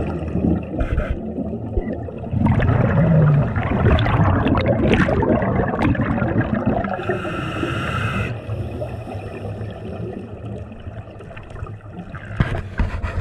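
Scuba breathing heard underwater through a regulator: a long rush of exhaled bubbles, then a hissing inhale of about a second, with more bubbles near the end.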